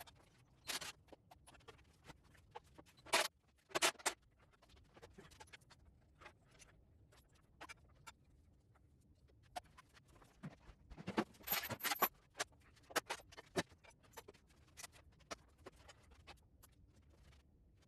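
Scattered clicks and clanks of hand tools and metal parts as a garden tractor is taken apart, with a quick run of knocks about eleven seconds in.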